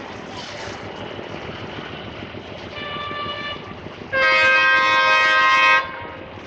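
Bangladesh Railway diesel locomotive on the approaching Kapotakkha Express sounding its horn. A shorter, quieter blast comes about three seconds in, then a loud, long blast of about a second and a half, over the steady noise of the oncoming train.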